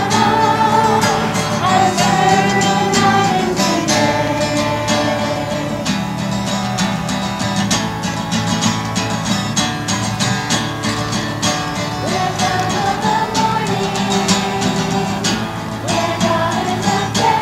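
Children's choir singing a song to a strummed acoustic guitar.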